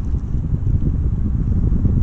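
Wind blowing on the microphone: a loud, fluctuating low rumble that starts abruptly.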